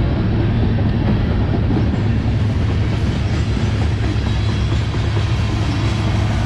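Kansas City Southern freight train passing at close range: a steady, loud rumble of steel wheels on the rails.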